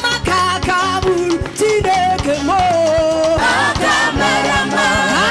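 Gospel music with a choir singing over a steady drum beat.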